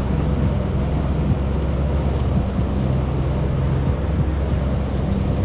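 Jet ski engine running steadily, a low even drone, with wind noise on the microphone and water noise over it.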